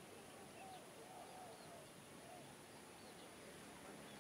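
Faint bird calls: short arching notes repeating over a quiet background.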